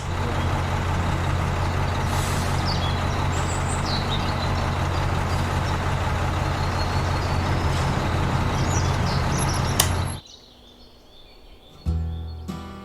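A machine running steadily, a low hum with a noisy hiss above it, for about ten seconds, then cutting off suddenly. A brief sound starts again near the end.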